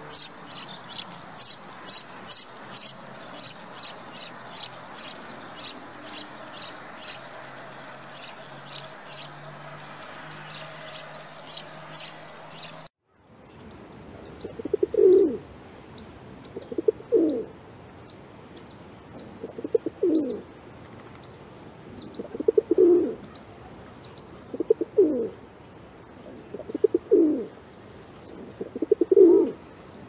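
House sparrows chirping in a quick, steady series of high chirps, about three a second. After a sudden cut a little before halfway, a spotted dove coos: seven low coo phrases about two seconds apart, with faint chirps of other birds behind.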